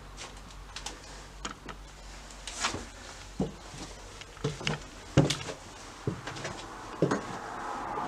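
Footsteps thudding irregularly on a bare floor strewn with debris, with small clicks and creaks between them; a steady background noise grows louder near the end.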